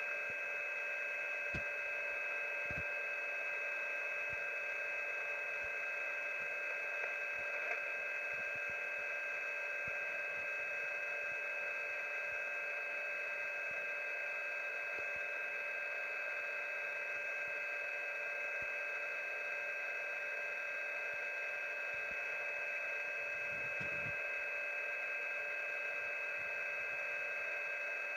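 Shortwave radio receiver tuned to an HFGCS frequency, giving out static hiss with three steady tones at different pitches held unchanged throughout, and a few faint scattered clicks.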